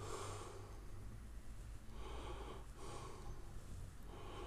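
Faint, short breaths through the nose of a person close to the microphone, about four puffs of roughly half a second each, over a low steady hum.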